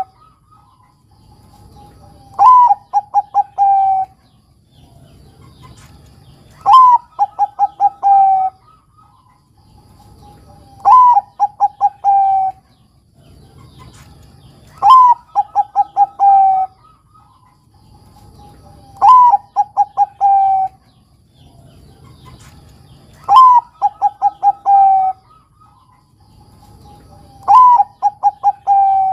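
Bangkok-strain zebra dove (perkutut) cooing its song, seven phrases about four seconds apart. Each phrase opens with a short falling note, then a quick run of about five clipped notes, and ends on a longer drawn-out note.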